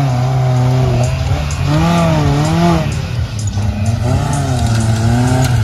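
Off-road 4x4's engine revving up and down over and over, the pitch rising and falling every second or so as the driver works the throttle through the obstacle.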